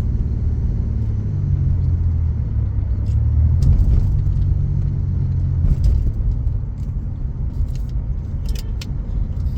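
Car engine and road rumble while driving, a steady low drone whose engine note rises slightly about a second in and again about three and a half seconds in. A few light clicks sound over it.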